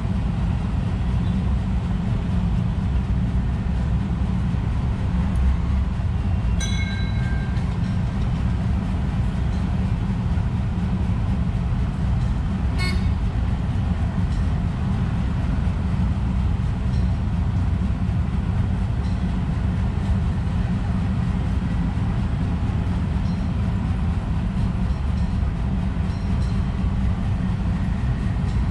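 Steady low outdoor rumble. A short tooting call sounds about seven seconds in, a sharp click about thirteen seconds in, and faint high chirps come here and there.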